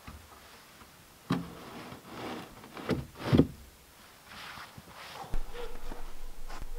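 Dull knocks and scrapes of a long wooden board being moved over wooden floor joists, three separate knocks with the loudest about three and a half seconds in.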